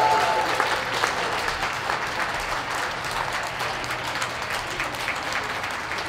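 Ringside crowd applauding, the clapping slowly fading.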